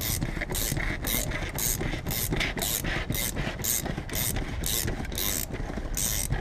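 Ratchet winder of a windshield wire-out tool, suction-cupped to the glass, cranked back and forth to reel in cutting line and cut the old windshield free. Its pawl clicks in short strokes about twice a second.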